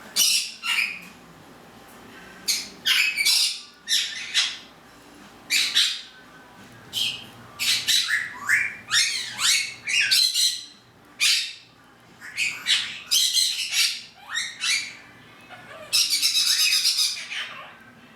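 Pet conure squawking again and again: a string of loud calls, most under a second long, with one longer call of about two seconds near the end.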